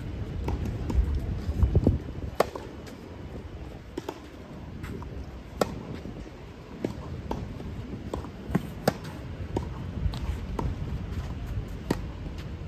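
Tennis rally on a clay court: irregular sharp pops of racket strings striking the ball, mixed with the ball bouncing, about a dozen over the stretch, the loudest about two and a half seconds and five and a half seconds in.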